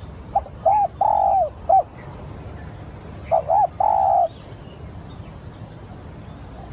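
Spotted dove cooing: two phrases of three or four deep, curving notes, the first about half a second in and the second about three seconds in, each ending on a longer held note.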